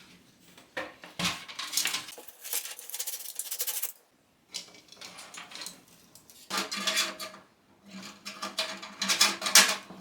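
Clicks and clatter of a PC case's drive trays being handled, pulled out and slotted back into place.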